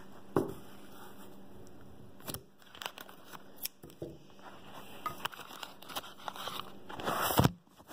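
Thin plastic blind bags crinkling and crackling as they are handled and opened, in scattered sharp crackles, with a louder burst of crinkling about seven seconds in.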